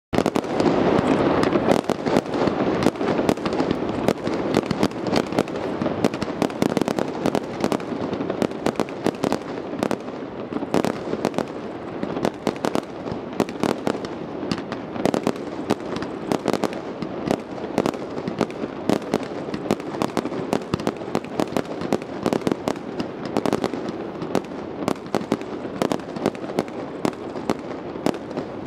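Fireworks display: a rapid, unbroken string of bangs and crackles from rockets and aerial shells launched over the water, loudest in the first few seconds.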